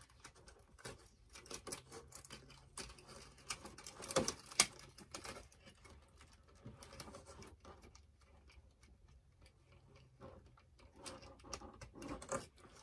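Irregular small clicks and taps of small plastic doll accessories and their packaging being handled, with a couple of louder clicks about four seconds in.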